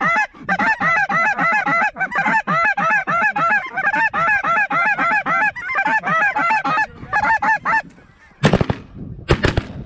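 A big flock of snow geese calling overhead, a dense, continuous chorus of high yelping honks that thins out near the end. In the last two seconds come a few loud, sudden bangs.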